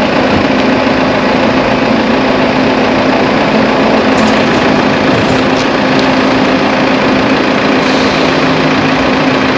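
A vehicle's engine running steadily, with a constant hum under even running noise.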